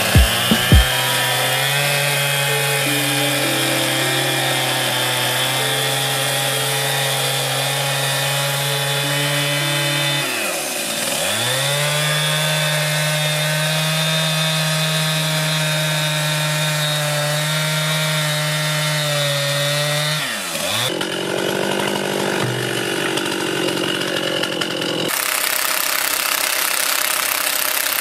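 Stihl two-stroke chainsaw running at high revs as it cuts into a squared timber beam. Its engine note dips and recovers twice, about ten and twenty seconds in. In the last few seconds the saw's note gives way to a steady rushing noise.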